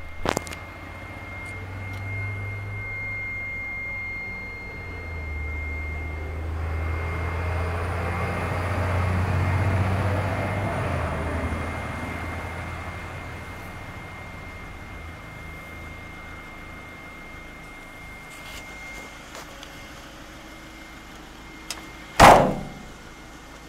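A Ford Transit minibus's rear door is slammed shut with one sharp, loud bang near the end. Earlier a low rumble swells and fades over several seconds, and there is a small click at the start.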